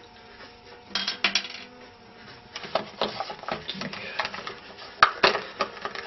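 Small hard parts clicking and clattering against a ceramic washbasin in quick irregular runs, with one sharp knock about five seconds in, the loudest.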